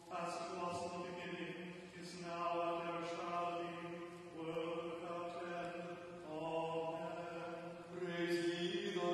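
Liturgical chant: the words of the service sung in phrases on long held, mostly level notes, with a change of pitch about six seconds in.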